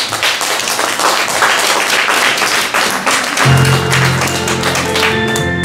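Audience applauding, then about three and a half seconds in music comes in with held chords over a low bass note.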